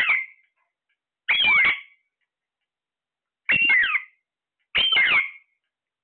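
Alexandrine parakeets calling: four short, harsh squawks, each with gliding, falling pitch, spaced a second or two apart with silence between.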